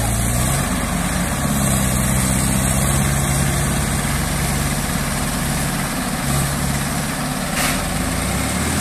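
Diesel tractor engine running steadily, its pitch shifting slightly a couple of times.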